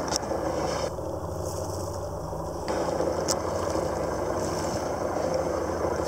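Catamaran's engine running with a steady low hum, under a haze of water and air noise.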